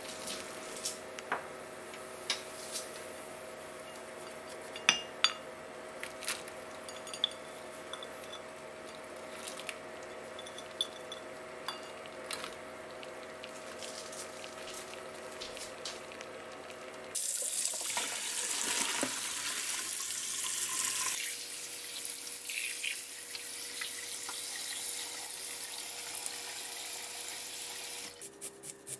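Water simmering in a stainless steel pot on the stove, with small bubbling pops and clicks over a steady hum; green beans are boiling in it. About two-thirds through comes a louder rush of pouring water for a few seconds, then tap water running steadily over green beans in a metal colander.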